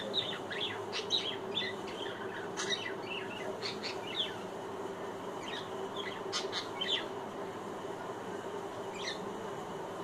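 Budgerigar chirping and chattering in short, high notes, a quick run of them through the first few seconds, another cluster around two-thirds in and a single one near the end, over a steady low hum.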